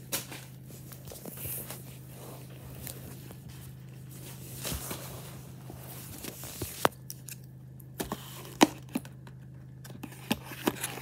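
Package wrapping being cut and torn open with scissors: crinkling and tearing, then a run of sharp snips and clicks in the second half.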